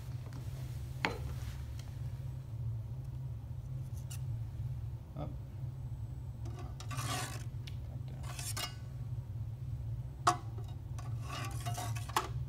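Steady low hum, with short scraping or rubbing noises now and then and a few sharp clicks, the loudest about ten seconds in.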